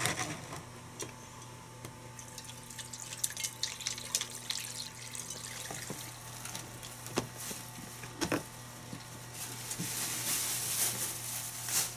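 Brine poured over chicken pieces in a plastic storage container. Then a run of plastic clicks and snaps as the lid is fitted and pressed down, two sharper snaps among them. A soft hiss near the end.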